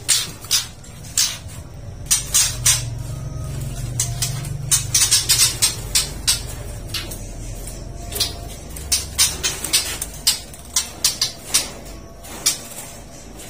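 Irregular knocks, clicks and rattles from a wooden, wire-mesh bird breeding cage as a white-rumped shama is chased and caught with a fish net, some knocks coming in quick clusters, over a low rumble.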